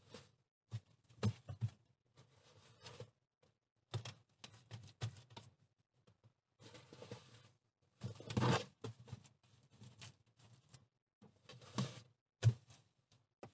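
Wet clay being scooped by gloved hands from a bucket and slapped and pressed onto an iron stove: irregular wet pats, squelches and scrapes, with a few sharper slaps standing out.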